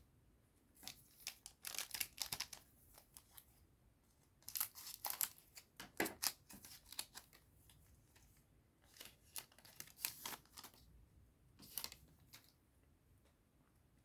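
Foil trading-card booster pack being torn open and crinkled, in several short bouts of crackling and tearing.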